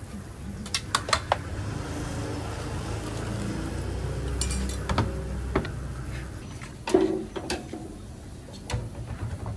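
Metal ladle and spoon clinking against stainless steel pots and a bowl as a noodle bowl is assembled: several sharp clinks about a second in, more around the middle, and a clatter near the end, over a low steady rumble in the middle.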